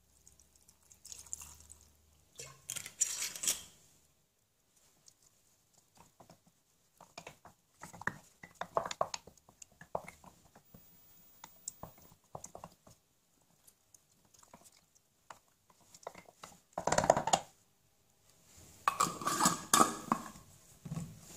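Alcohol poured into a glass jar of blackberries. Then a wooden spoon mashes the berries, squishing and knocking against the glass in irregular clusters. There is a single loud clatter about 17 seconds in, and more clattering near the end as the jar is closed with its lid.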